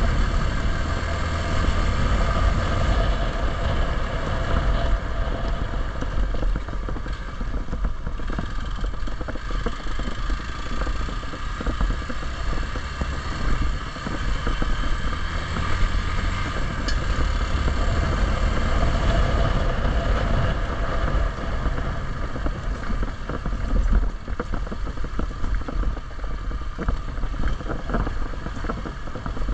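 Hero XPulse 200 motorcycle's single-cylinder engine running steadily under way, with wind rumble on the action camera's microphone.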